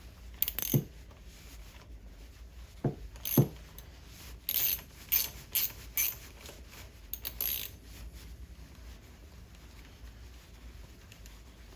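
Hand tools clinking on metal: scattered short clicks and clinks, in small clusters, while the vehicle speed sensor's hold-down bolt is tightened on a 4L60E transmission.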